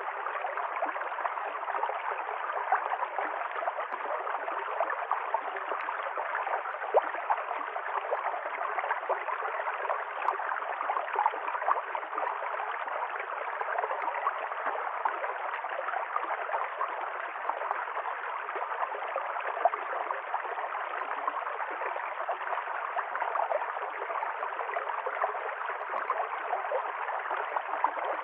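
River stream flowing: a steady rush of water with constant small gurgles and splashes over stones.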